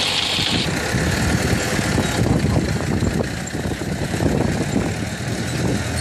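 Cow-drawn wooden plough's metal share scraping and crunching through dry, clumpy soil, with the cows' hooves and footsteps on the clods; an irregular, continuous crackle.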